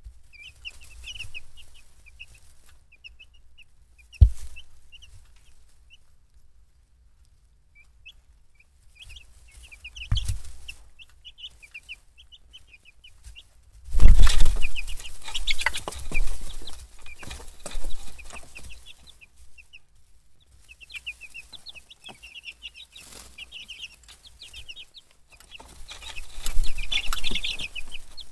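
Baby chicks peeping: many short, high chirps in bursts. A sharp knock about four seconds in, a thump near ten seconds, and a loud stretch of close rustling and knocks about halfway through, as chicks bump and scuffle right at the microphone.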